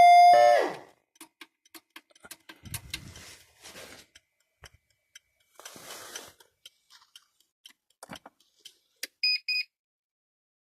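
Octava-80 fire alarm unit's warning tone, loud and steady, falling in pitch as it cuts off about half a second in. Scattered clicks and rustles follow, then two short high beeps near the end.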